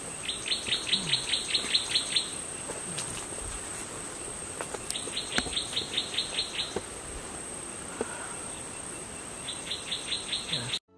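Outdoor insect and bird chorus: a steady high insect buzz, over which a run of quick, evenly spaced chirps comes three times, each run lasting about two seconds. It cuts off abruptly near the end.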